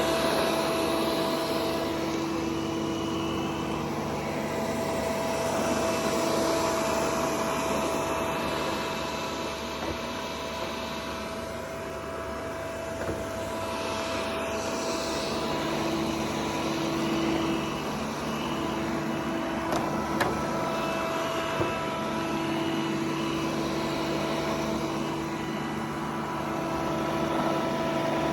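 Robot vacuum cleaner running: a steady whir of noise with a few steady tones that fade in and out, swelling and easing slightly in level, with a couple of small clicks about two-thirds of the way through.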